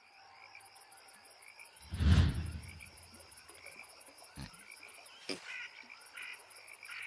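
Pond ambience of frogs croaking over a fast, steady, high insect trill, with a loud low thump about two seconds in.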